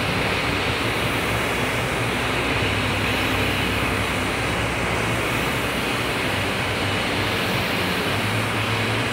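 Concept2 rowing machine's air flywheel spinning under hard rowing, a loud, steady whoosh of air.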